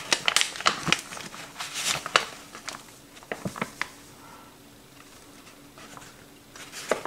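Self-raising flour poured from its bag into a glass mixing bowl: the bag rustling and crinkling with soft pattering and a run of small clicks and taps, dying down after about four seconds.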